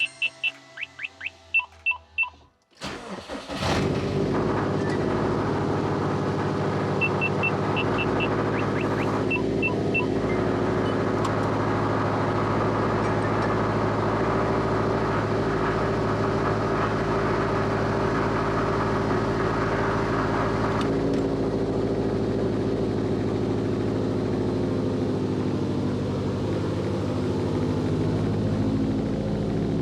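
Subaru STI's turbocharged flat-four cranked and started about three seconds in, then running steadily. Short runs of high electronic chime beeps come just before the start and again a few seconds after it.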